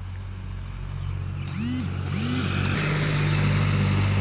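An engine running steadily and growing louder, with two short rising-and-falling tones about halfway through.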